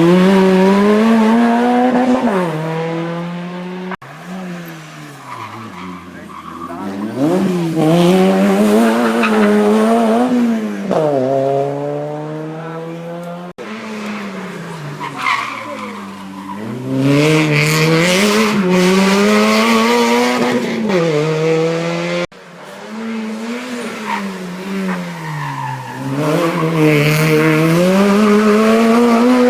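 Hill-climb race car engines at high revs, the note climbing and dropping again and again with throttle and gear changes. The sound breaks off abruptly three times, about four, thirteen and a half and twenty-two seconds in, and picks up again on another run.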